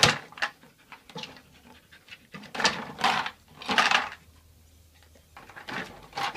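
A dog panting in short, irregular breaths.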